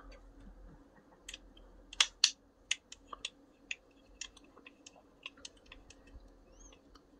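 Light, irregular clicks and ticks as a long screw is turned by hand into a 3D-printed plastic part, the thin driver and screw tapping and catching against the plastic; the two loudest clicks come about two seconds in.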